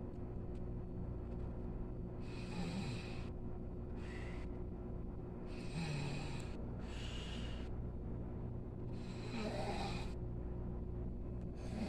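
A sleeping person snoring: three slow breaths, each a rasping inhale followed by a shorter breathy exhale, about every three and a half seconds.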